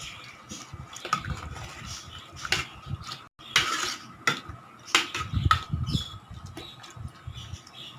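A spoon stirring chana dal, chopped snake gourd and water inside a pressure cooker, with scattered clinks and scrapes of the spoon against the pot. The sound breaks off for an instant about three seconds in.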